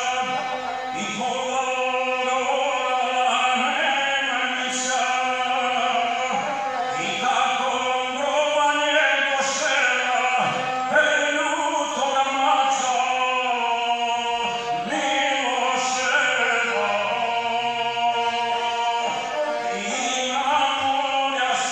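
A man singing epic verse in the guslar style to his own gusle, the single-string bowed folk fiddle, bowed without a break under the chant.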